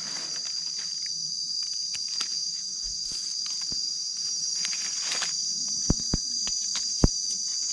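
Steady high-pitched drone of insects, with a few sharp clicks near the end.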